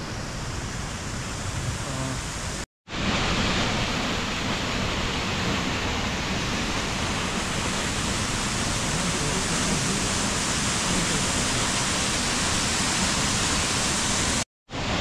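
Steady rushing noise, like running water or wind, with no distinct events; the sound cuts out completely for a moment twice, about three seconds in and near the end, and is louder after the first break.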